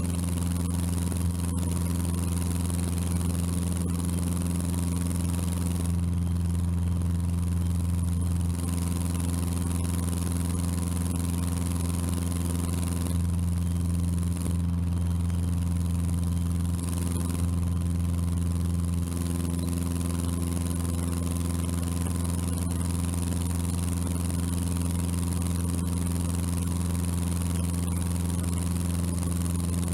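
Cessna 150's four-cylinder Continental O-200 engine and propeller at climb power, a steady low drone with a hiss above it and no change in pitch.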